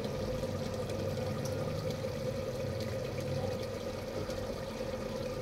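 A steady hum with a faint watery sound beneath it, while lemon juice drips from a hand-squeezed lemon into a plastic bottle.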